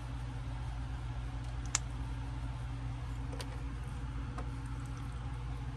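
Steady low hum in the background, with two faint clicks about two seconds apart as the plastic boots and legs of an action figure are handled and pulled apart.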